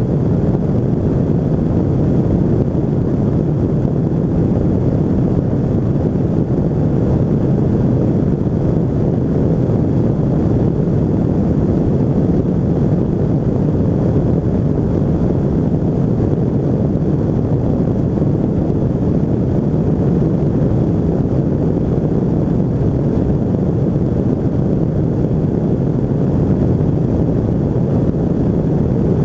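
Quantum 582 flex-wing microlight in flight, its Rotax 582 two-stroke engine and propeller running steadily, mixed with heavy wind rush on the microphone.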